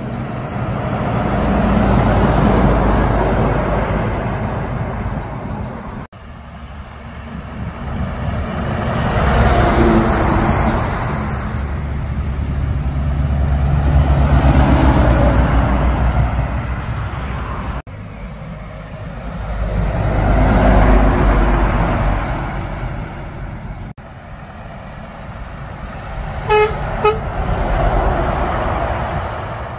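Heavy trucks passing one after another on a highway, their engine and tyre noise swelling and fading with each pass. Near the end a truck sounds its horn in two short toots.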